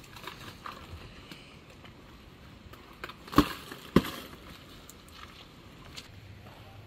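Two sharp knocks about half a second apart, stone striking stone as rocks are handled for a stone edging, over faint crunching and small clicks of gravel and mortar being worked.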